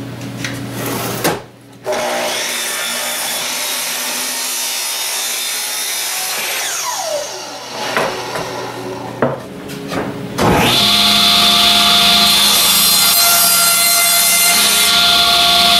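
A sliding compound miter saw cutting plywood, its motor whine falling away as the blade spins down after the cuts. About ten seconds in, a table saw starts up with a loud, steady high whine and rips through a plywood panel.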